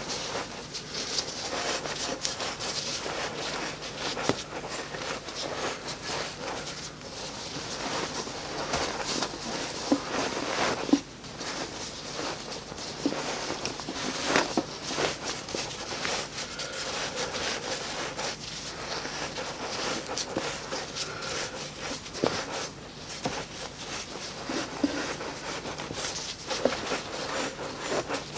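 Gloved hands rustling and crackling as they press ceramic fibre insulation blanket into a sheet-steel forge shell, with scattered small clicks and a few louder knocks of the metal.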